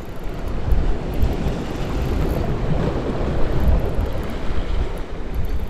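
Sea surf washing against concrete breakwater blocks, with wind buffeting the microphone in a steady low rumble.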